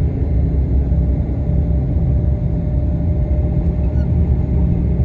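Steady low rumble of a tour bus's engine and tyres on the road, heard from inside the cabin, with a faint steady whine.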